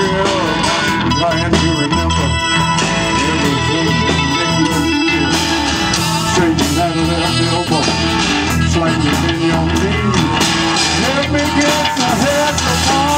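Live blues band playing an instrumental passage: electric guitar and an organ-toned keyboard over bass and drums.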